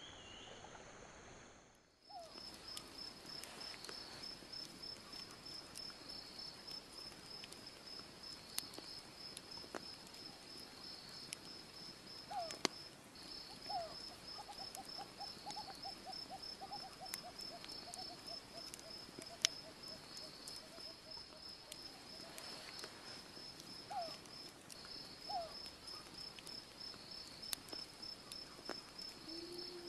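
Night insects, crickets or katydids, keeping up a steady, rapid, pulsing high trill. A few short rising animal calls sound in the first half, and in the middle comes a run of chirps that slowly falls in pitch, with scattered sharp pops from the campfire.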